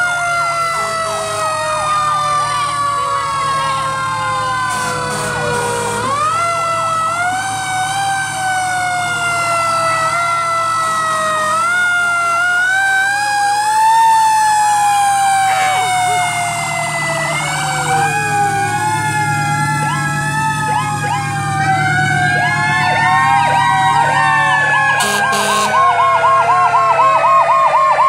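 Sirens of several passing fire trucks and other emergency vehicles wailing together, their pitches rising and falling out of step with one another, over a steady low engine rumble. Near the end one siren switches to a fast yelp.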